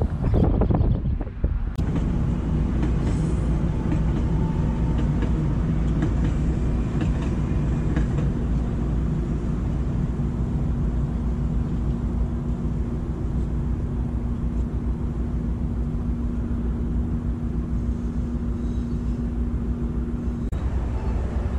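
DART Kinki Sharyo light rail train running past on the adjacent track: a steady low rumble with a constant hum that cuts off suddenly near the end. Gusts of wind buffet the microphone in the first two seconds.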